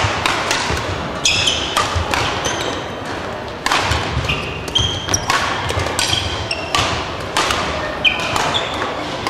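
Badminton rackets striking shuttlecocks in a rally, many sharp hits, with short high squeaks of court shoes on a wooden gym floor, over the steady background noise of a busy sports hall.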